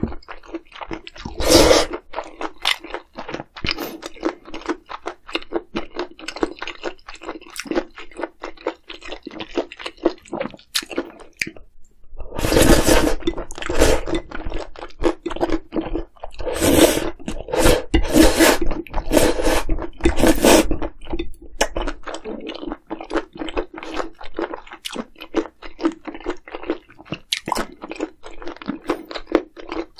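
A person chewing food close to the microphone: a dense run of small wet mouth clicks, louder for a few seconds about halfway through and again a little later. A steady low hum sits underneath.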